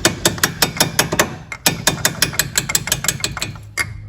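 Ratchet wrench clicking rapidly and evenly, about seven clicks a second, as a nut is run on; the clicking stops about three and a half seconds in, followed by a single sharper knock.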